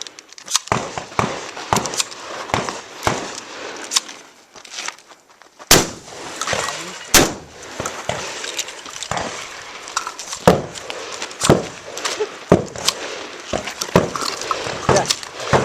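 A string of shotgun shots. Smaller, sharp knocks come about every half second at first, then from about six seconds in the loudest shots follow at roughly one a second.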